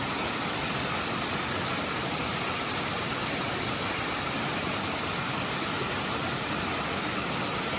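A strong breeze rushing steadily, an even roar of wind across the microphone with hardly any change in level.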